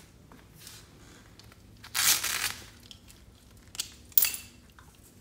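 A small dog's fabric harness being unfastened by hand: two short ripping rasps about two seconds apart, with a sharp click just before the second.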